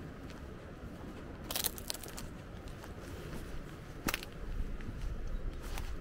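Irregular footsteps with sharp clicks and crunches: a short cluster about a second and a half in and a single click about four seconds in. They sit over steady outdoor background noise, with a low rumble rising near the end.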